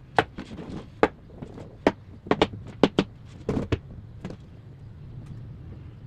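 A quick run of about a dozen sharp clicks and knocks from objects being handled, thickest in the first four seconds, over a low steady hum.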